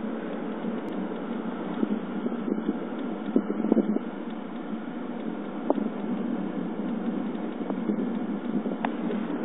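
Steady road and cabin noise inside a moving 2011 Chevrolet Cruze, with a few irregular light ticks over it: the rattling/ticking the owner is chasing, whose cause even the dealer could not find.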